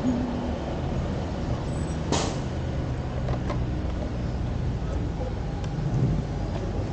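Small motorbike's engine running at low speed as it rolls off slowly, a steady low rumble. A short, sharp hiss comes about two seconds in.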